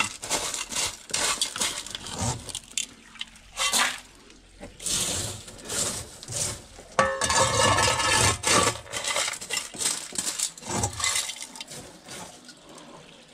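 Wet sapphire-wash gravel scraped and scooped by hand and with a scraper off a round wire-mesh sieve: stones rattle and clink against the mesh and metal rim in irregular bursts.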